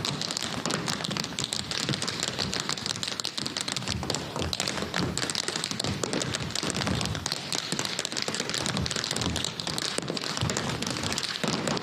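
Tap shoes of a group of tap dancers striking the stage floor, many quick metal taps running together in a dense, rapid rhythm.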